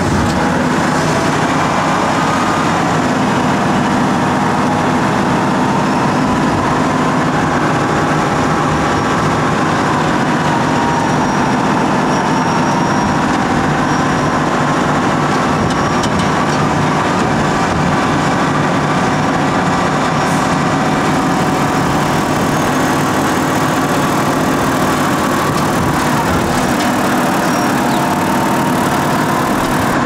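Diesel engine of a Volvo L150H wheel loader running steadily under work, with a whine that rises and falls now and then as the loader moves.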